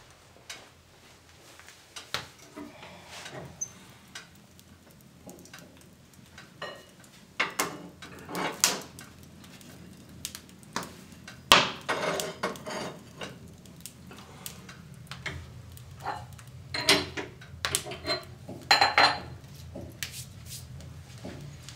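Metal clinking, knocking and rattling on a cast-iron wood-burning stove as it is tended by hand: irregular strikes and scrapes, the sharpest clank about halfway through and a run of clanks near the end, over a low steady rumble.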